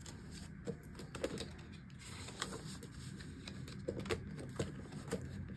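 Clear plastic cash envelopes and paper bills being handled in a binder: scattered light clicks and soft rustles.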